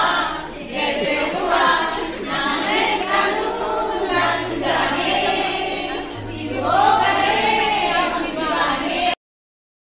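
A group of women singing together in chorus. The sound cuts off abruptly near the end.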